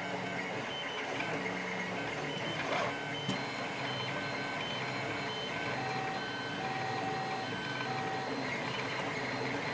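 3D printers running, their stepper motors whining in short steady tones that jump from pitch to pitch as the printer moves, with a few faint clicks.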